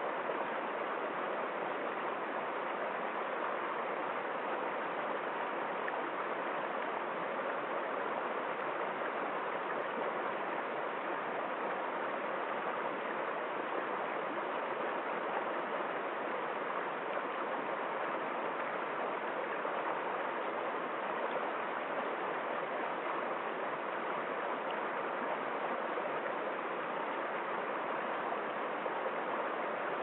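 Shallow rocky stream flowing over stones and small cascades: a steady, unbroken sound of running water.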